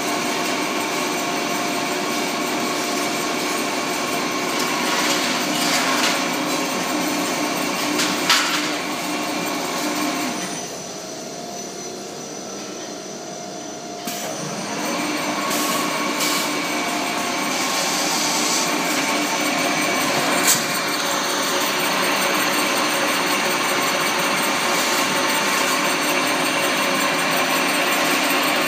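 Vertical rotary wire coiler running as it winds thin wire: a steady mechanical hum and whine with several held tones and a few sharp clicks. The sound drops for a few seconds partway through, then comes back abruptly.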